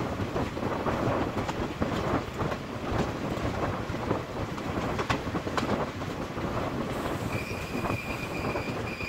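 Passenger train coach running at speed, its wheels rumbling and clattering over the track with scattered sharp knocks. About seven seconds in, a steady high squeal from the wheels comes in over the running noise.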